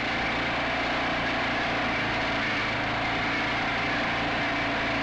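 ATV engine running at a steady speed while the four-wheeler rides across the pasture.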